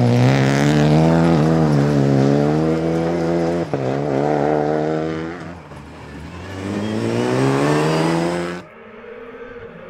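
Renault Clio rally car's engine revving hard as it passes, its pitch dropping and climbing again with quick gear changes. The sound fades, then swells as the car comes through again, and cuts off abruptly to a quieter, steadier engine sound near the end.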